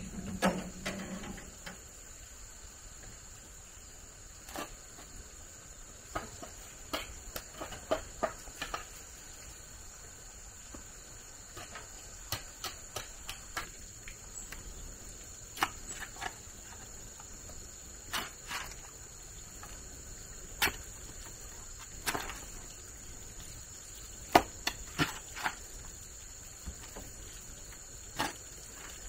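Irregular sharp knocks and clicks, some single and some in quick clusters, with a low thud in the first second or so. A steady high-pitched whine runs underneath.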